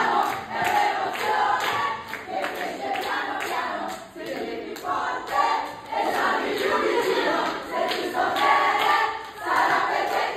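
A large audience singing together, many voices in chorus in long phrases, with short breaks about four seconds in and near the end.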